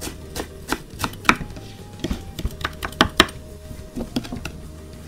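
Chef's knife chopping fresh greens on a wooden cutting board: irregular knocks of the blade against the board, about two or three a second, with the loudest strokes around three seconds in.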